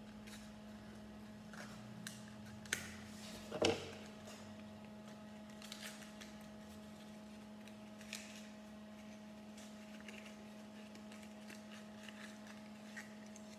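Small handling noises: a cardboard box being cut open with scissors and handled, with scattered clicks and rustles and two louder clacks about three seconds in, over a steady electrical hum.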